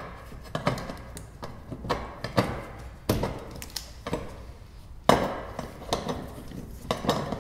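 Fuel pump lock ring clinking and scraping against the fuel tank's lock-ring supports as it is worked into place by hand: irregular clicks and knocks, the loudest about three and five seconds in.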